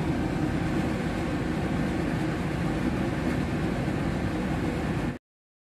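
Steady, low rumbling background noise of a room, with no clear tone or rhythm, that cuts off suddenly about five seconds in.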